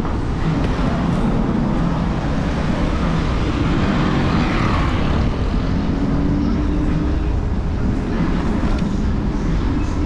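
Steady low rumble of wind and road noise from an electric scooter riding along a city street, picked up by a camera on its handlebars.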